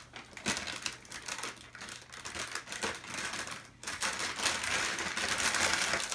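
Plastic wrapping crinkling and rustling as it is handled and pulled open, with scattered light clicks; the rustling grows denser about four seconds in.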